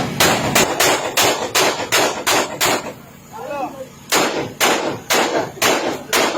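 Guns fired in quick succession, about three shots a second, each a sharp crack with a short echo. The firing stops for about a second and a half, during which a short voice-like call rises and falls, then the shots resume.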